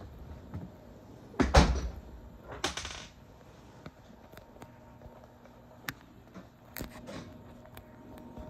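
A few sharp knocks and clunks like a door or fittings being handled, the loudest about one and a half seconds in and a rattling one soon after, over a faint steady low hum.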